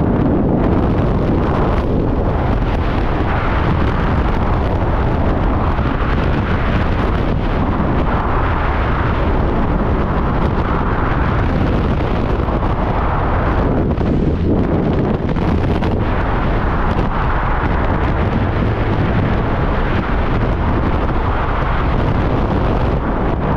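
Loud, steady rush of wind buffeting the microphone in skydiving freefall, air streaming past the falling jumpers.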